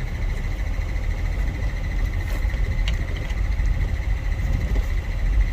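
Steady low machine rumble with a thin, steady high whine over it, and a couple of light clicks about two and three seconds in.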